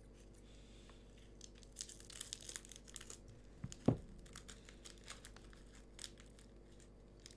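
Plastic wrapper of an Umaibo snack stick crinkling and tearing open, with one sharp thump about halfway through.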